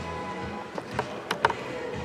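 Background music with steady held notes, broken by a few sharp clicks about a second in, the last and loudest near the middle.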